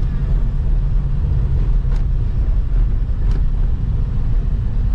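Steady low rumble of a moving road vehicle, with two faint clicks.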